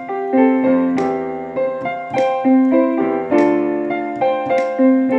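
Piano or keyboard playing sustained chords, struck about once a second, as the instrumental fill between the sung lines of a slow gospel worship song.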